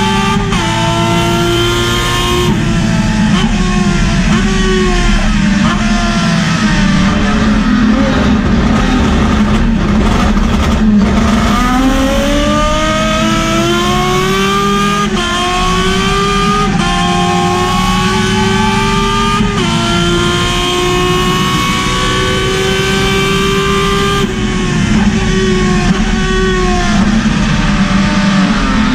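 Turismo Carretera race car's engine heard from inside the cockpit, run hard through the gears: its pitch climbs in each gear and drops sharply at each shift. In the first seconds and again near the end it falls in short quick steps, as when braking and downshifting into corners.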